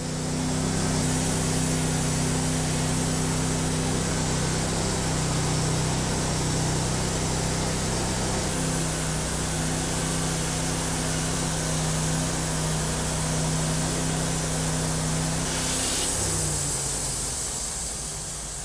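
Portable band sawmill driven by a Honda V-twin petrol engine, running steadily while its blade saws through an oak log as the head is pushed along the track by hand. About sixteen seconds in, the engine note shifts and drops away, and the sound fades out near the end.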